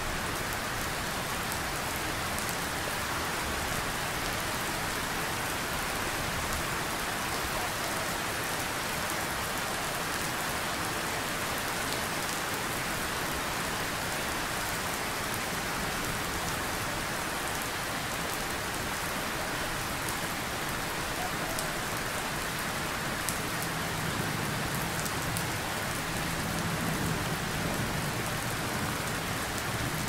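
Steady rain falling, an even hiss of drops on a surface with no let-up.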